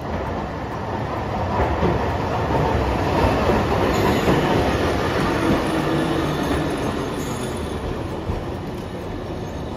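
Hiroden 700-series streetcar no. 705 passing close by, its wheels rumbling and clattering on the rails. The sound grows to its loudest in the middle as the car goes past and then slowly fades.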